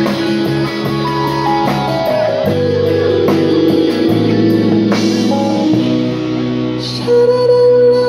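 Live band playing a pop-rock song: acoustic guitar, electric guitar, bass, keyboard and drum kit, with singing.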